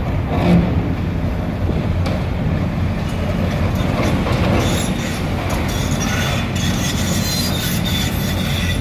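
Demolition excavator running with a steady low engine rumble, its steel tracks and wheels squealing and clanking as it moves. The squeal is typical of dry, unoiled wheels.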